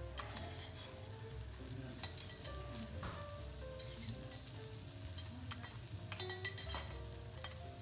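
A thick A5 Kuroge wagyu steak sizzling steadily on a teppanyaki steel griddle. Metal spatulas click and scrape against the plate a few times, most sharply near the end.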